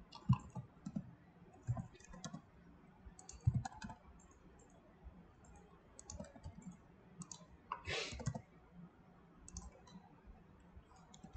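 Quiet, scattered clicks of a computer mouse and keyboard, the short presses of keyboard shortcuts and mouse clicks, with one slightly longer noise about eight seconds in.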